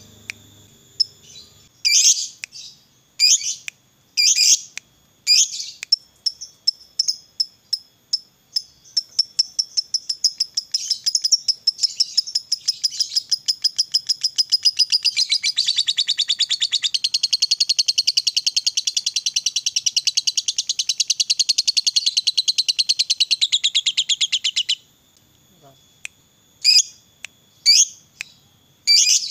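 Lovebird singing. A few sharp single chirps quicken into rapid repeated notes, which merge into one long unbroken chatter lasting about fifteen seconds: the long 'ngekek' that hobbyists prize in a lovebird's song. The chatter stops abruptly, and single chirps return near the end.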